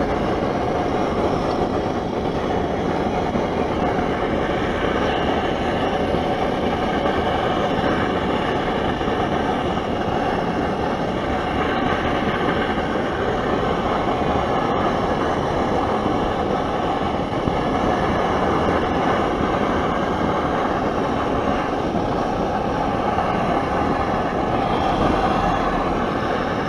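Primus OmniLite Ti gas stove burning at full flame under a pot of cold water, a steady rushing burner noise; the water is still heating, not yet near the boil.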